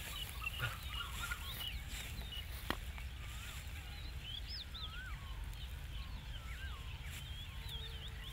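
Outdoor ambience of many birds chirping and whistling in short rising and falling calls, over a steady low rumble, with one sharp click a little under three seconds in.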